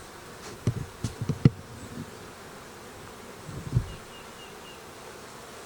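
Honey bees buzzing steadily around an open hive during an inspection, with a few soft low thumps in the first second and a half and again near the middle.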